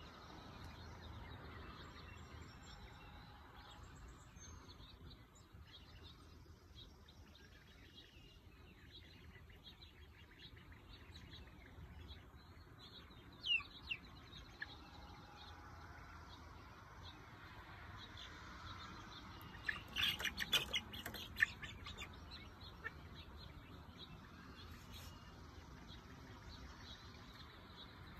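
Month-old chick and ducklings peeping: scattered short high chirps, with one loud call about halfway through and a quick run of loud calls about two-thirds of the way in.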